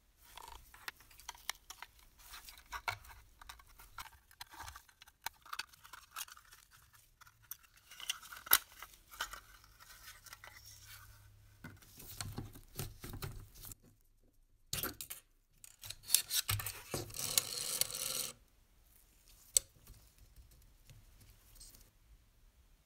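Clicks, taps and scrapes of small rusty tinplate and steel parts being handled and pried apart with hand tools as an antique clockwork toy locomotive is taken to pieces. In the middle, after a short pause, comes a denser run of metallic scraping lasting about three seconds, as pliers work on the clockwork's steel mainspring. It falls mostly quiet near the end, with one more click.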